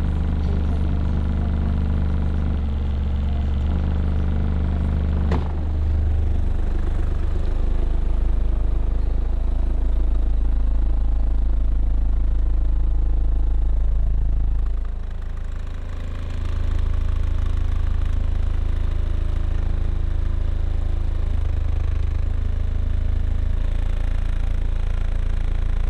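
Deep bass test tones from a car's subwoofer system (four 12-inch, two 15-inch and one 18-inch subs), each note held for several seconds before stepping to another pitch, with a sharp click about five seconds in.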